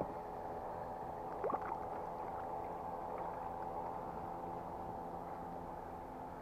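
Steady drone of a boat motor running, one even pitched hum with no change in speed. A brief rising whistle sounds about a second and a half in.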